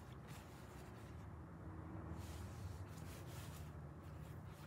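Faint rustling and rubbing of fabric pieces being handled.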